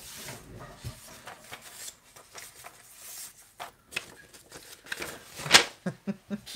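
Sheets of paper rustling and sliding against each other as they are leafed through and one is pulled from the stack, with a louder crisp rustle about five and a half seconds in.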